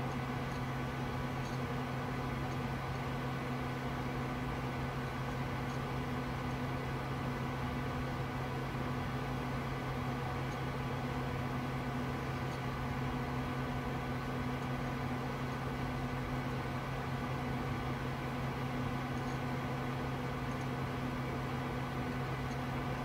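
Cooling fans of an old Socket 7 PC running, a steady whirring hum with a constant low drone that does not change.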